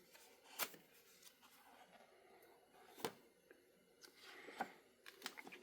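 Pages of a large book being turned by hand: three brief papery flicks spaced a second or two apart, with a few lighter rustles and ticks near the end, over near silence.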